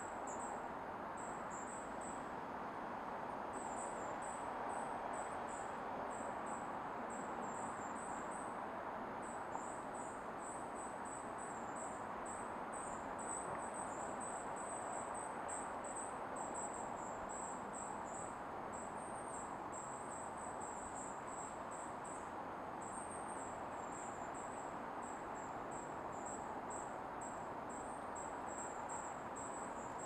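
An insect, cricket-like, chirping: a near-continuous run of short high-pitched chirps at nearly the same pitch, with brief gaps. Underneath is a steady low rush of background noise.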